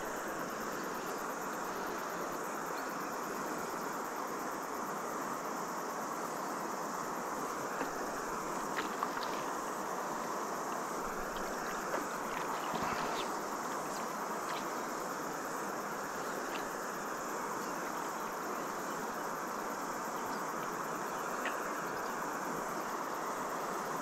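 Steady chorus of cicadas buzzing over the constant rush of swift river water.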